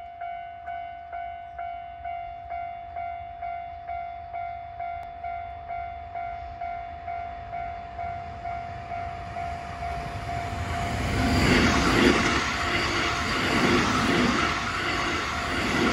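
Level-crossing warning bell ringing in a steady repeating chime, about twice a second. From about ten seconds in, a Keihan Main Line train passes over the crossing, its wheels clattering rhythmically over the rails while the bell keeps ringing beneath.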